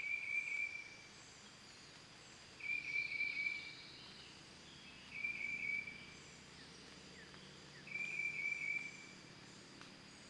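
An animal calling outside, a high chirping call about a second long repeated at an even pace, four times, about every two and a half seconds.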